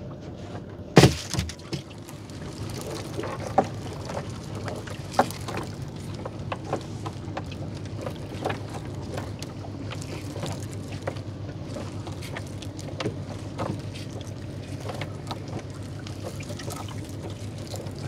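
Wet gill net being hauled by hand over the side of a wooden boat, water pouring and dripping off the mesh with scattered splashes and small knocks, over a steady low hum. A sharp knock about a second in is the loudest sound.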